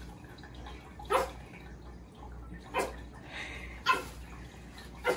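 A pet's short, high-pitched calls, four of them spaced one to two seconds apart, over a steady low hum.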